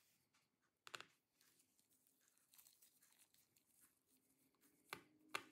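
Near silence, broken by a few faint clicks from a small screwdriver and gloved hands working the laptop's battery screws: once about a second in and twice near the end.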